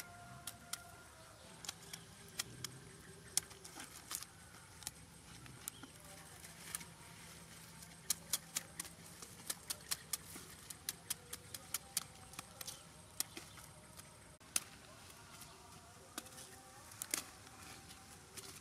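Cauliflower leaves and stalks snapped and stripped off by hand: many irregular sharp cracks and crackles.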